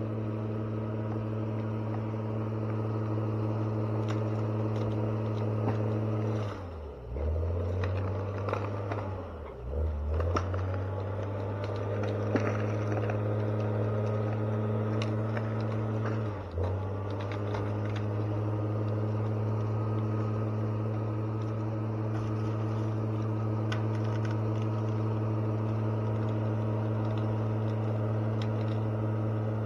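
Heavy logging machine's engine running at a steady speed, dragged down in pitch three times as if under sudden load and recovering each time. Scattered sharp knocks and cracks sound around the first two dips.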